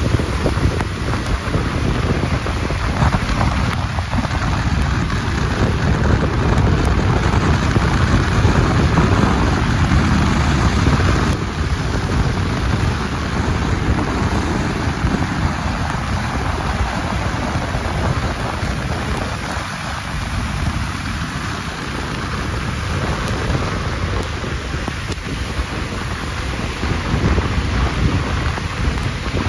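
Steady rumbling road noise and hiss from a car driving on a wet, slushy, snow-covered street, mixed with wind.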